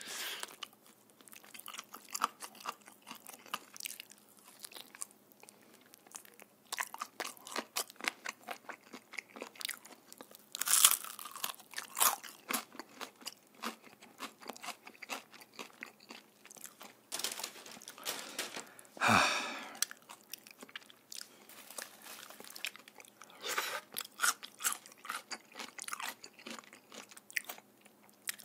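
Close-miked crunching and chewing of Korean market-style fried chicken: the crisp fried coating crackles in many sharp crunches with each bite, with a few louder bursts, the loudest about two-thirds of the way in.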